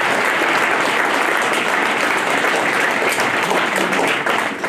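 Audience applauding steadily, with the clapping starting to die down near the end.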